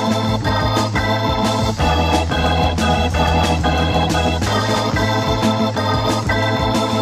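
Instrumental progressive rock: an organ holding chords over a bass line that shifts to a new note about two seconds in, with a steady beat of percussion hits.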